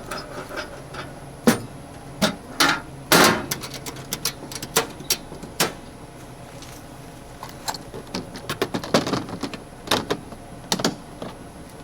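Metal tools and toolbox parts clinking and knocking as the toolbox is packed and its lid worked shut: an irregular run of clicks and thumps, with louder knocks a second and a half and about three seconds in and another cluster near the end.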